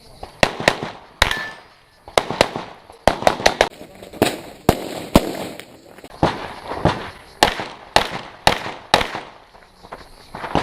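Handgun firing about twenty shots in quick strings, with brief pauses between them, as a shooter works through an IPSC practical-shooting stage.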